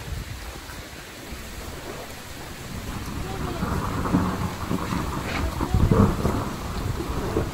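Wind buffeting the microphone outdoors, a low rumble that grows louder about halfway through, with rustling mixed in.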